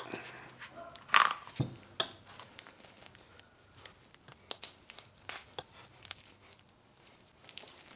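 Gloved hands squeezing a tube of CV joint grease into a CV joint: soft, irregular crinkling of the tube with scattered small clicks and squishes.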